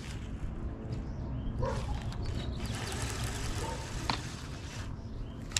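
Baitcasting reel whirring as line is reeled in for about three seconds, over a steady low wind rumble, with a couple of sharp clicks and a faint bird chirp.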